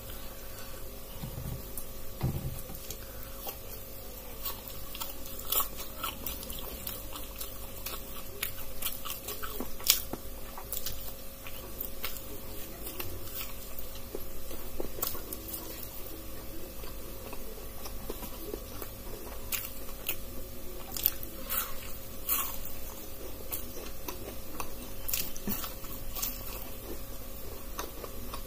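Close-up mouth sounds of someone eating crisp fried pakoras (gram-flour fritters): repeated crunchy bites and chewing, with sharp crackles scattered all through.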